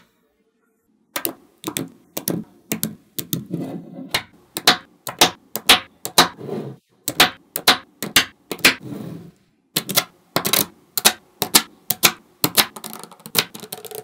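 Small magnetic balls clicking and clacking as strips of them are snapped onto a slab of balls, a sharp click with a short rattle about twice a second, starting about a second in.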